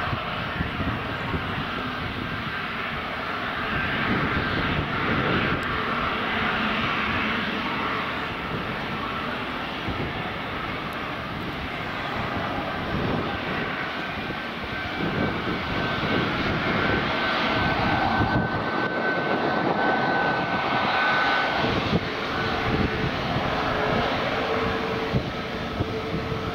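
Jet engines of a Boeing 737 MAX at taxi power, CFM LEAP-1B turbofans, a steady whine as the aircraft rolls past. A high tone in the whine fades out about three quarters of the way through, and a lower hum comes in near the end.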